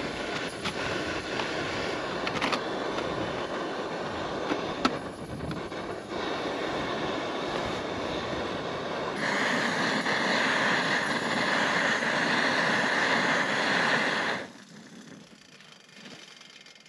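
Gas canister camping stove burning steadily under a titanium mug of water. The hiss grows louder about nine seconds in, then drops away sharply about fourteen and a half seconds in.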